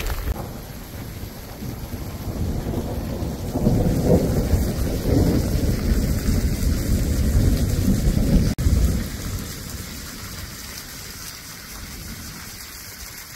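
Sudden thunderstorm: rain hissing steadily while a low thunder rumble swells about four seconds in and dies away after about nine seconds, leaving the rain quieter.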